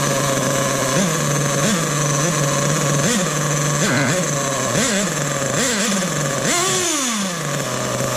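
Nitro glow engine of a Losi 8IGHT truggy idling with the glow plug igniter still on, freshly started after long storage. It gets a string of short throttle blips, then one longer rev about six and a half seconds in that falls back to idle.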